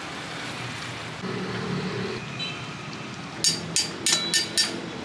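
Metal tongs clacking five times in quick succession, each click with a short metallic ring, over a steady background hum.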